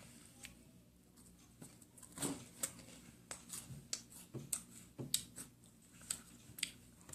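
Crisp wafer biscuits being chewed close to the microphone: an irregular run of sharp crunches and crackles starting about two seconds in.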